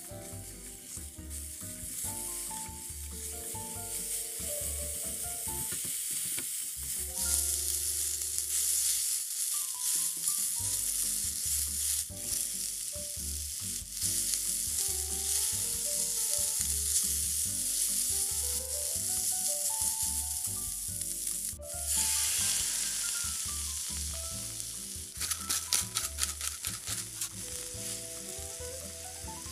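Onions and shredded chicken sizzling in a hot nonstick frying pan as a spatula stirs them. The sizzle grows louder, surges suddenly about two-thirds of the way in, and near the end there is a quick run of spatula strokes, with soft background music underneath.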